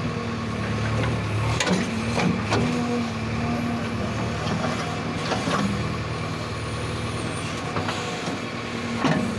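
JCB 3DX backhoe loader's diesel engine running steadily while the backhoe arm and bucket work, with a few sharp knocks about one and a half to two and a half seconds in, again about halfway and near the end.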